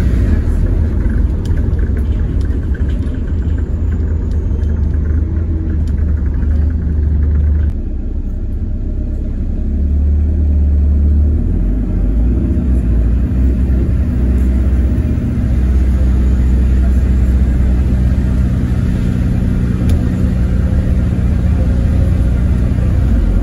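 Inside an Alexander Dennis Enviro400H hybrid double-decker bus on the move: a loud, continuous low rumble from the drivetrain and road. There are light rattles and clicks in the first few seconds, and a steady hum joins about halfway through.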